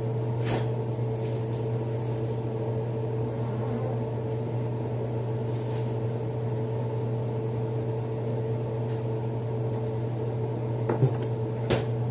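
Steady low electrical hum of a kitchen appliance running, with a few light knocks near the end.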